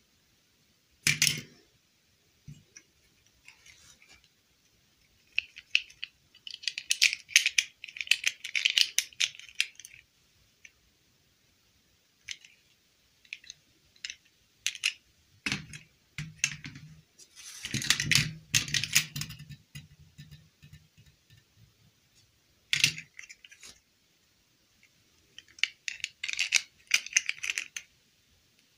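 Small hard-plastic doll figures and a clip-on plastic dress being handled and snapped together: bursts of light clicking and rattling, with a couple of single knocks.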